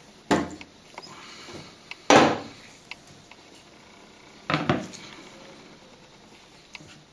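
Knocks and clatters of a steel air-rifle air reservoir cylinder and a plywood board being handled and set down on a tabletop: three louder knocks about two seconds apart, with a few light clicks between them.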